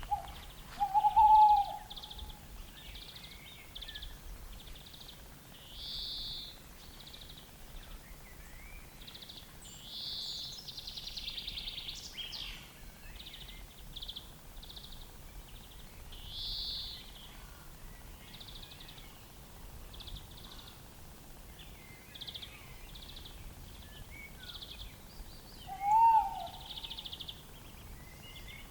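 Tawny owl hooting: two loud, slightly wavering hoots, one about a second in and another near the end. Small birds sing short high notes again and again in between.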